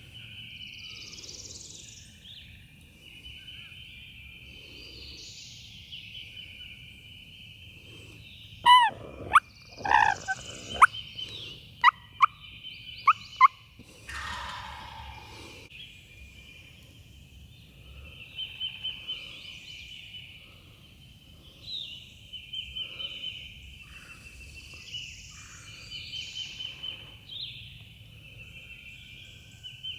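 Wild turkey gobbler gobbling in the woods, alongside a cluster of loud, sharp yelp-like calls about nine to thirteen seconds in. A steady, high trilling chorus runs underneath.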